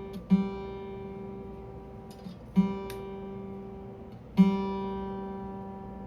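Rogue acoustic guitar with new phosphor bronze strings: a single string plucked three times, each note ringing out and fading, as it is checked and tuned.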